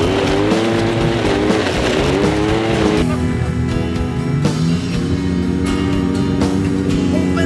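A side-by-side's engine revving, its pitch rising and falling, under background music with guitar. About three seconds in the engine sound gives way to the music, with steady held notes and a regular beat.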